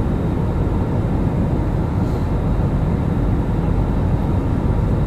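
Airplane cabin noise: the steady low rush of a jet airliner's engines and airflow heard from inside the cabin in flight.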